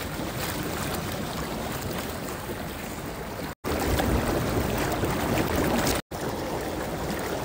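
Steady rushing noise of a bubbling hot tub's jets mixed with wind buffeting the phone's microphone. The noise breaks off sharply twice at cuts between short clips.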